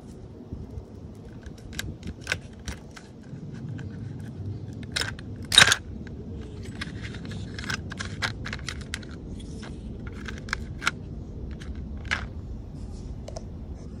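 Metal brake pads, their thin metal backing plates and shims clicking and clacking against each other and the plastic tray as they are handled and separated, with one louder clack about five and a half seconds in.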